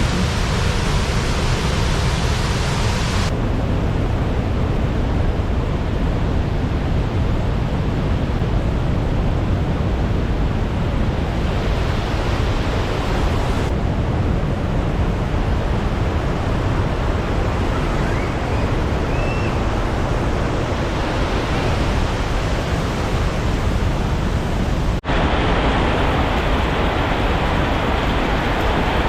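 Loud, steady rushing noise with no distinct events. Its character changes abruptly three times, with a brief dropout about 25 seconds in, as at cuts between recordings.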